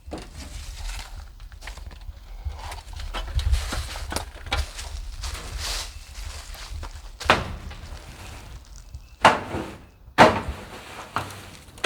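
Footsteps and handling noise with scattered small knocks, then three sharp knocks: one about seven seconds in and two louder ones about a second apart near the end.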